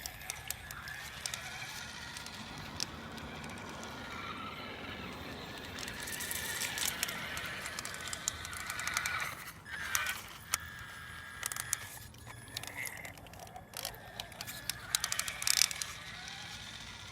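A LaTrax Teton electric RC truck's motor whining, its pitch rising and falling as it speeds up and slows, with its tyres crackling and clicking over rough ground.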